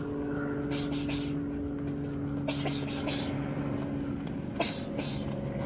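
Short hissy bursts coming in quick irregular clusters from someone shadowboxing on concrete, over a steady low mechanical hum.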